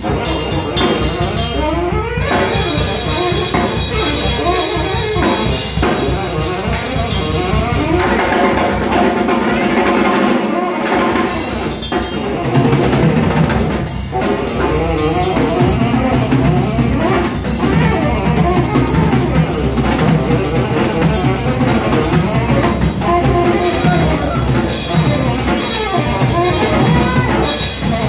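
Tenor saxophone and drum kit playing jazz live together. The saxophone plays busy improvised lines and holds some longer notes about a third of the way through, over constant drumming and cymbals.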